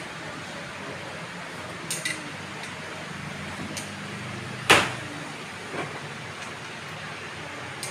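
Steady background noise broken by a few sharp knocks and clinks: two close together about two seconds in, the loudest just before five seconds, and a lighter one about a second later.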